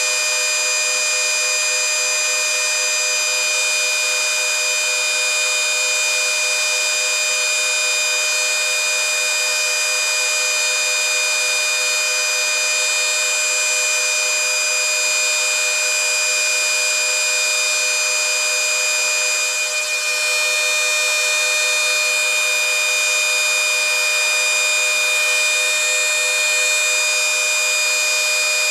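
Several trim routers, including a Kobalt, a Makita and a Bauer, running at once at their highest speed with no cut: a steady, high-pitched whine made of several tones at once, holding level throughout.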